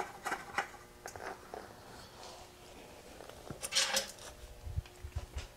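Small metal parts being handled and fitted by hand on a motorcycle's rear fender: faint clicks and clinks, a brief scrape about four seconds in, then a few soft low knocks near the end.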